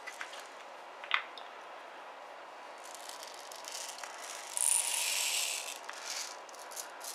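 Small shotgun shot rattling and pouring in a clear plastic tube as it is opened and tipped out, loudest for about a second midway. A sharp click about a second in.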